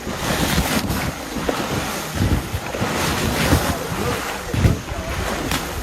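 Wind buffeting the microphone in irregular gusts over the wash of open water.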